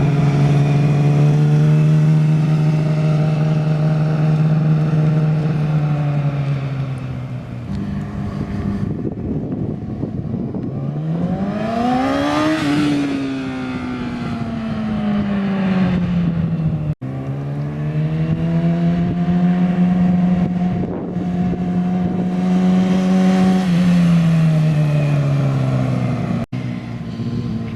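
2008 Yamaha R6 inline-four running through a Toce slip-on exhaust with no resonator, practically a straight pipe, with a deep grumble. The engine holds steady high revs and then drops off. About halfway through its pitch shoots up and falls away as the bike passes. After an abrupt break it holds revs again and falls off near the end.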